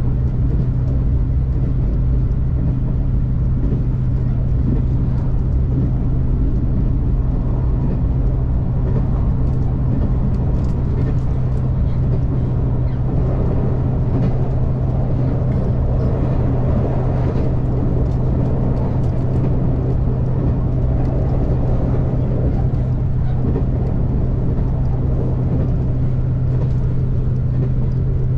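KiHa 283 series diesel railcar running, heard from on board: a steady low drone under a constant rumble of running noise, with faint scattered clicks and rattles.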